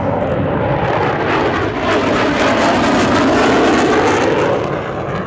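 General Dynamics F-111's twin afterburning turbofans flying past with afterburners lit during a fuel dump and burn: loud, dense jet noise that swells to its loudest about three to four seconds in, then eases slightly.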